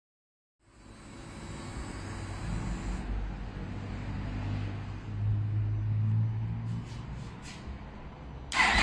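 Yamaha YZF sportbike inline-four with an Austin Racing exhaust running quietly at low revs, coming in from silence and swelling slightly in the middle. Near the end the sound jumps suddenly to a much louder level.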